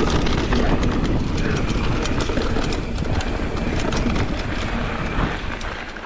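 Mountain bike riding down a dirt singletrack: steady low rumble of tyres and wind on the microphone, with a rapid scatter of rattling clicks from the bike over rough ground. The noise eases off near the end.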